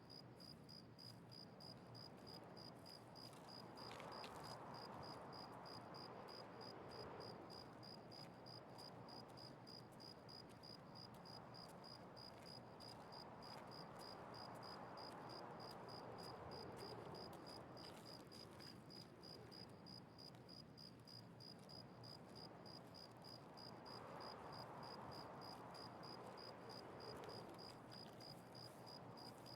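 A cricket chirping steadily, a short high chirp about three times a second, over a faint rushing background that slowly rises and falls.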